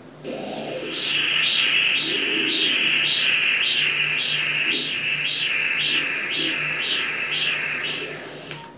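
Doppler ultrasound machine playing pulsed-wave blood-flow audio: a rhythmic whooshing pulse just under two beats a second, following the heartbeat, from a vessel being measured in a pregnancy Doppler study.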